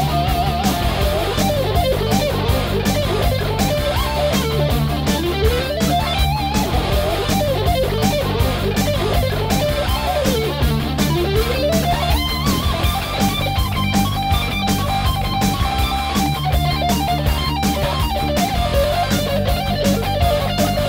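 Electric-guitar music over a steady drum beat, with a lead guitar line sliding up and down in pitch.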